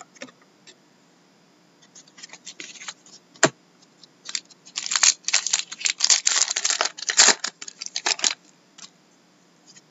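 A trading-card pack wrapper being torn open and crinkled in the hands: a dense crackling rush of about four seconds in the second half. Before it come a few light clicks and one sharp knock.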